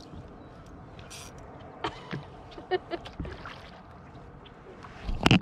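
Water sounds around a Hornbeck pack canoe, with scattered light knocks and clicks against the hull while a hooked fish is played alongside. A brief hiss comes about a second in, and a burst of louder sudden knocks or splashes comes near the end.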